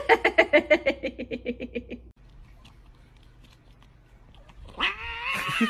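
A cat chattering: a fast run of short chirps, about eight a second, for two seconds. Near the end a cat starts a long, wavering meow.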